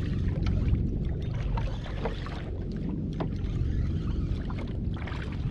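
Water sloshing and lapping against a kayak hull, with a steady low wind rumble on the microphone and a few irregular small splashes or ticks.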